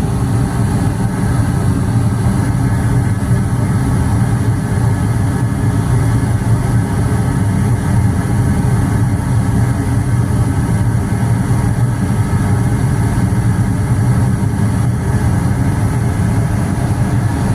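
Goodman gas furnace running steadily after start-up: an even, unbroken hum of its fans and burner flames, strongest in a low drone.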